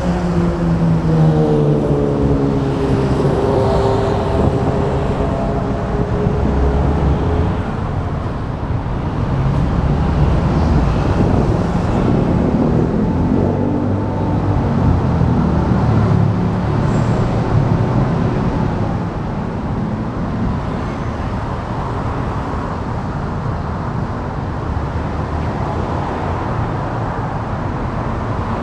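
Busy city road traffic: the steady rumble of passing cars and trucks. In the first several seconds a small truck's engine runs close by, its pitch dipping and then holding steady.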